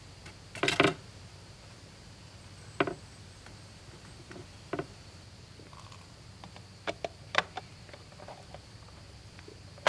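Clicks and knocks of an AeroPress coffee maker being handled and set down: a short clatter about a second in, single knocks around three and five seconds in, then a quick run of clicks around seven seconds in.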